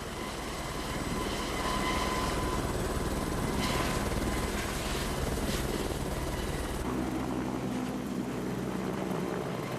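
Helicopter flying, its rotor and engine a steady loud drone that shifts in tone about seven seconds in.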